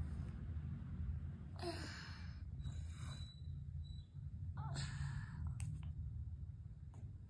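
Three short, breathy exhales or sighs close to the microphone over a steady low hum, with a single light click about two-thirds of the way through.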